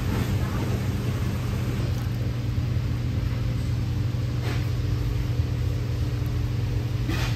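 Steady low mechanical hum with a faint constant tone above it, and two short hisses, one about halfway through and one near the end.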